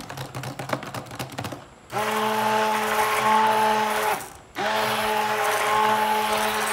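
Stick (immersion) blender in a bowl of cold process soap batter. For about two seconds the blender head knocks and scrapes in the bowl with the motor off. Then the motor runs with a steady hum for about two seconds, stops briefly, and starts again, pulse-blending the batter toward a light trace.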